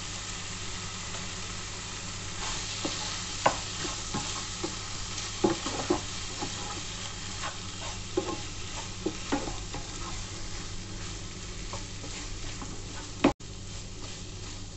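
Chicken pieces sizzling as they fry in a nonstick pan, stirred with a wooden spatula that scrapes and knocks against the pan now and then, with one sharper knock near the end.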